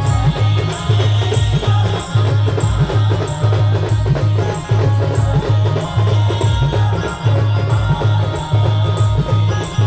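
Adivasi band music playing a devotional aarti tune, with a heavy, steady bass drum beat, percussion and a regular high tick over it.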